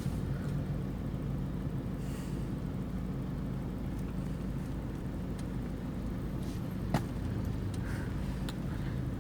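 Cabin noise of a Toyota Fortuner's 2KD-FTV 2.5-litre four-cylinder turbodiesel on the move: a steady low engine drone with road noise. A single short click about seven seconds in.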